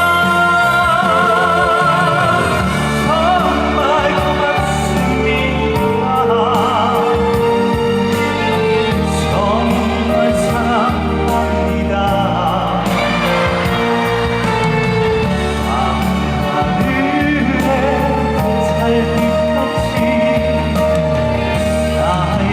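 Live amplified singing with a strong vibrato over band accompaniment with a steady bass, played loud through a concert sound system.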